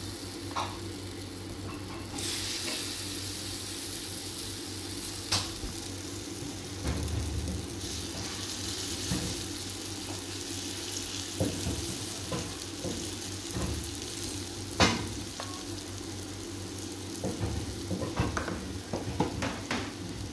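Gram-flour (besan) batter sizzling in a little hot oil in a non-stick frying pan, a steady hiss, with a silicone spatula now and then tapping and scraping the pan as the batter is spread; the sharpest tap comes about fifteen seconds in.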